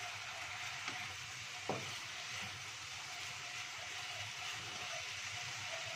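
Vegetables and meatballs sizzling in a wok, stirred with a wooden spatula that gives two sharp knocks against the pan in the first two seconds.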